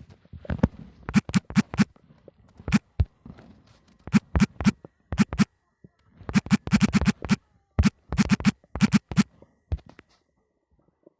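Stomach growling: irregular runs of short, quick gurgling pops in several bursts with short gaps between.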